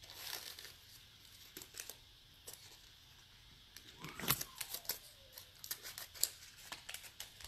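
Faint, irregular rustling, crinkling and small clicks of jewelry and its packaging being handled, busiest in the second half.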